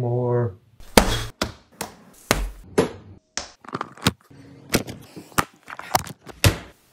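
Guitar music stops, then about a dozen hard, sharp blows follow in quick, irregular succession, some with a dull thud beneath.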